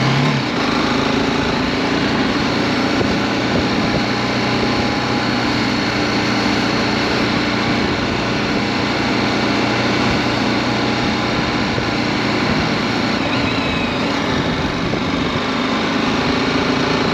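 BMW G310GS motorcycle's single-cylinder engine running steadily at an even speed, its pitch barely changing.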